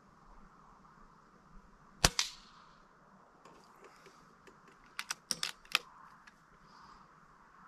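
Air Arms S510 .177 PCP air rifle firing one shot, a sharp crack about two seconds in with a short tail. About five seconds in comes a quick run of four or five sharp metallic clicks as the side-lever action is worked to load the next pellet.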